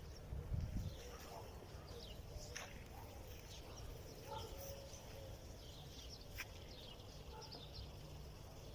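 Birds chirping, many short, faint calls scattered throughout, with a brief low thump about half a second in.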